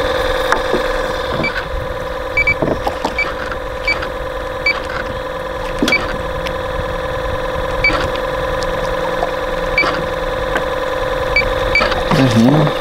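Electric trolling motor humming steadily, with short high beeps every second or two and a few light clicks.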